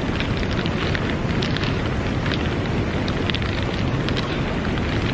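Steady loud rushing noise outdoors, with faint crackling of a plastic bag being handled.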